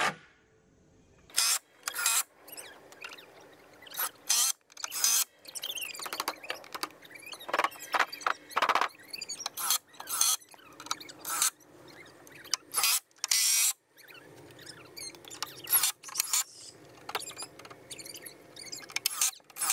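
Cordless drill driving screws into wooden 2x4 studs in a long series of short bursts, about fifteen to twenty, with brief pauses between them.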